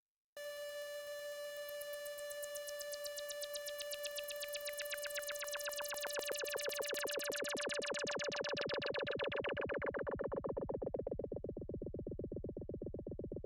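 Behringer UB-1 Micro analogue synthesizer playing one held note of a factory preset, with no effects added. A fast throbbing sets in after about two seconds, and the tone grows steadily duller and darker from the middle on as its filter closes.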